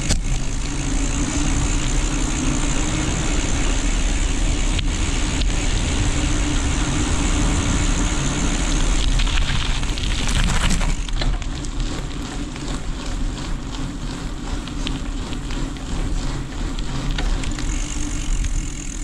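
Rushing wind on the microphone while a bicycle is ridden, with heavy low rumble. It eases about eleven seconds in, and a run of rapid ticks follows.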